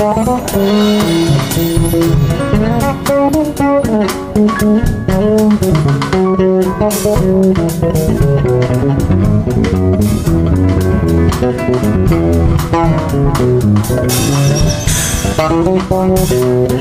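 Live band playing an instrumental passage: electric bass line over drum kit, with guitar and keyboard parts.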